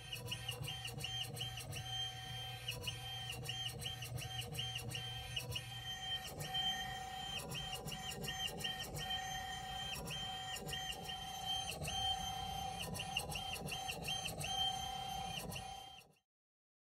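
Motor-driven precision linear stage making a series of short moves: a whine that starts and stops again and again, with clicks as each move begins and ends, over a steady lower tone. A low hum drops out about six seconds in.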